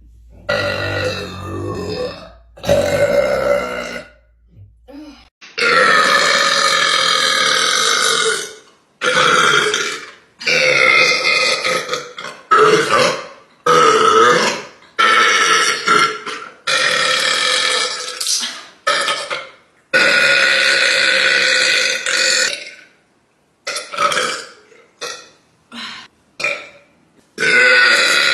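Girls belching: a string of loud, drawn-out burps, some lasting two to three seconds, separated by short pauses, with a quick run of shorter burps near the end.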